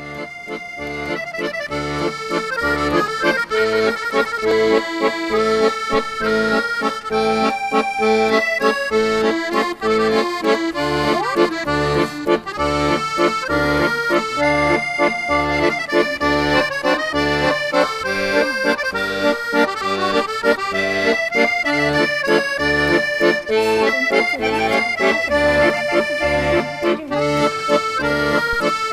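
Instrumental background music with a melody over a steady bass beat, fading in at the start.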